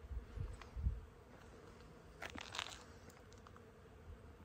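Faint steady buzzing of bees, with low rumbles on the microphone in the first second and a brief crunching about two seconds in.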